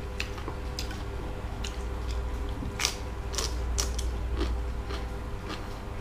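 Crisp crunching bites and chewing of raw vegetable: a series of short sharp crunches, the loudest about halfway through, over a steady low hum.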